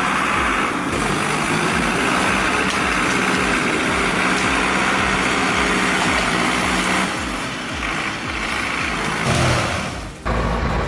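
Large machine engine running steadily under heavy noise, with a steady low hum. The sound dips briefly and jumps back abruptly near the end.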